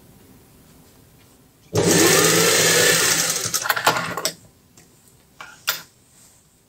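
Industrial sewing machine running a short burst of stitching. It starts loud and steady, then slows and stutters through a few stitches and stops. Two short sharp sounds follow near the end.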